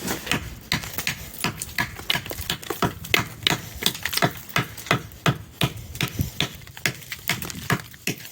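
Thick glaze ice crackling and cracking in a quick, irregular run of sharp clicks, several a second.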